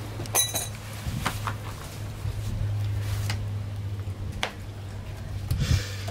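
A mower's grass-catcher bag being handled: a sharp clink about half a second in and a few lighter clicks from the bag's frame and handle, with a rustle of the fabric bag near the end. A steady low hum runs underneath.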